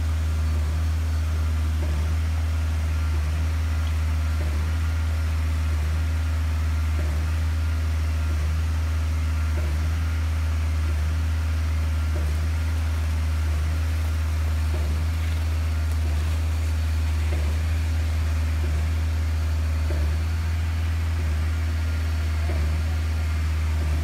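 Concrete pump's engine running steadily, a constant low drone, as concrete is pumped through the hose into the footings.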